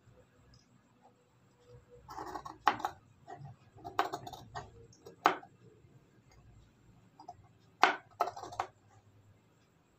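Large tailor's scissors cutting a curved neckline shape out of a folded white sheet: about five separate snips, each a sharp click of the blades with a short crunch of the material, a second or more apart.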